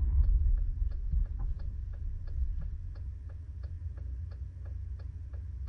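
Car turn signal clicking steadily in the cabin, a tick-tock pair about every 0.7 s. Under it is a low engine and road rumble that fades as the car slows for the turn.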